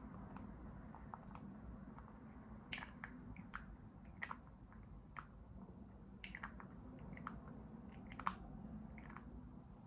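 Long fingernails tapping and clicking on a small round plastic container: irregular light clicks a few times a second, one sharper click near the end, over a steady low background hum.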